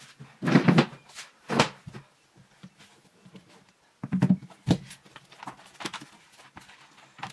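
Objects handled on a wooden desk: a few knocks and thuds as a phone and a hardback Bible are moved and set down, loudest near the start and again around four seconds in, then lighter taps and rustling as the book is opened.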